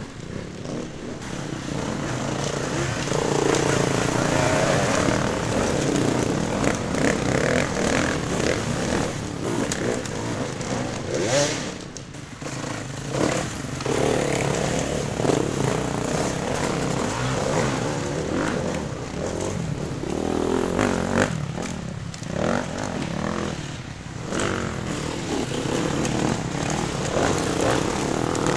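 Several enduro dirt bike engines revving hard under load as the bikes climb a trail section, their pitch rising and falling over and over as the throttle is worked.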